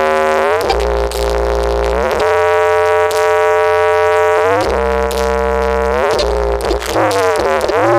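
Loud electronic music played through a large subwoofer-stacked sound system: a reedy synth lead holds long notes and slides between them every second or two, over heavy, deep sub-bass that changes with each note.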